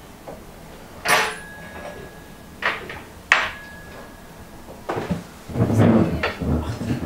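Tableware clinking as cake is served at the table: three sharp clinks, two of them ringing on briefly, then a jumble of knocks and clatter of plates near the end.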